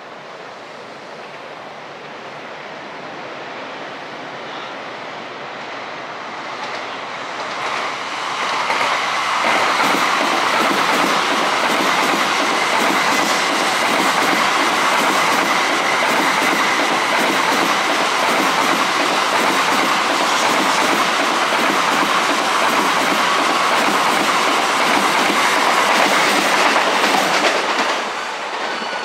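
An electric passenger train approaches and passes close by, its wheels clattering in a steady rhythm over the rail joints. It grows louder over the first several seconds, stays loud for nearly twenty seconds, and drops off suddenly near the end.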